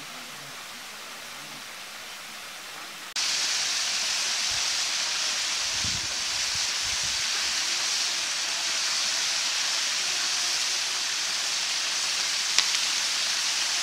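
Steady rushing of a waterfall pouring into a pool. It gets suddenly louder about three seconds in. A single sharp click comes near the end.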